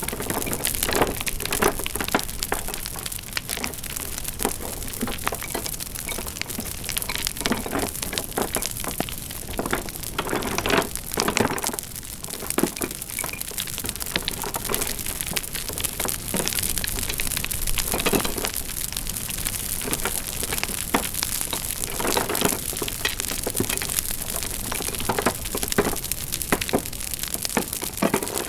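Wood fire crackling: a dense, steady crackle with louder pops every few seconds.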